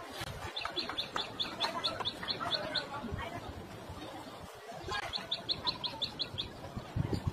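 A bird calling in two quick series of short, high chirps, about five a second, over a low background hum.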